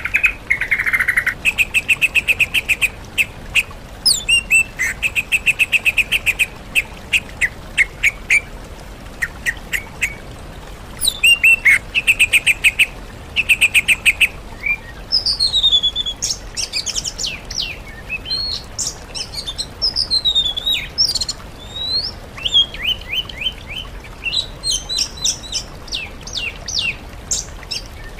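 Songbird song mixing sooty-headed bulbul with oriental magpie-robin and greater green leafbird. The first half has bursts of fast rattling trills. After about fifteen seconds the song turns to varied whistled notes and quick downward sweeps.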